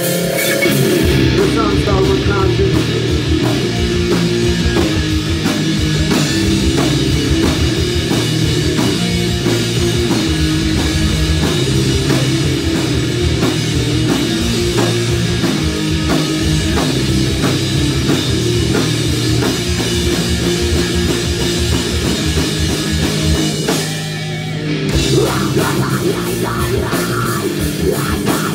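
A live rock band playing loud heavy rock on electric guitars, bass and drum kit. About 24 seconds in, the drums and cymbals drop out for about a second, then the full band comes back in.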